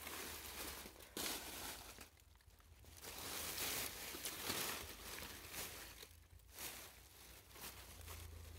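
Irregular rustling and crunching in dry vegetation, like footsteps through brush.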